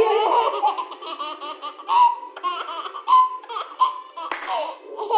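A baby laughing in a run of short, repeated giggles.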